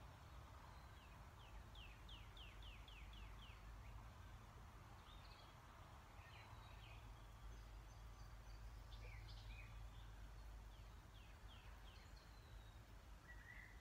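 Near silence: room tone with faint, distant bird chirps, a quick run of about eight falling notes a second or so in and a few scattered calls later.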